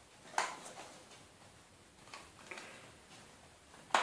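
A handful of light, scattered clicks and ticks as a metal crochet hook and rubber bands are worked against a plastic band loom. The strongest click comes about half a second in and another just before the end.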